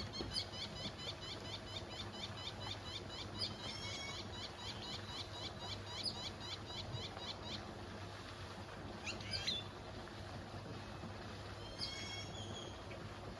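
Birds calling: a long, fast series of repeated high chirps, about four a second, for the first seven seconds or so, then a couple of shorter calls, over a faint steady low hum.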